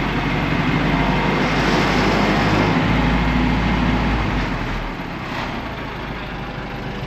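1972 Allis-Chalmers M65 road grader's gasoline engine running, with the throttle opened slightly and then let back toward idle about four and a half seconds in. The engine now responds to small throttle movements instead of jumping to full throttle.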